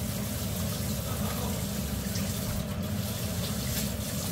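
A large pot of chicken broth at a rolling boil, bubbling steadily.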